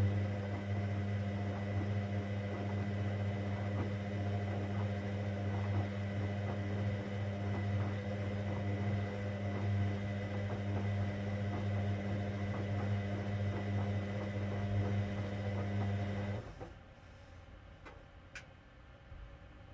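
Hoover Dynamic Next washing machine's drain pump running: a steady mains hum with a light crackle of water passing through it, cutting off suddenly about sixteen seconds in. A single sharp click follows a couple of seconds later.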